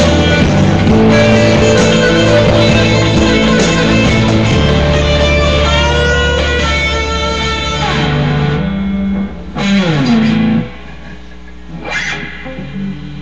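Rock music led by electric guitar with bass, holding sustained notes. About two-thirds of the way in, a note slides downward in pitch and the music drops sharply in loudness. A rising slide comes near the end.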